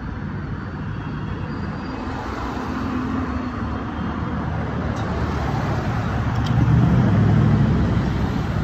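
Road traffic starting up again across a railroad crossing: cars driving over the tracks, the noise growing louder, with the loudest pass, a pickup truck going by close, about seven seconds in.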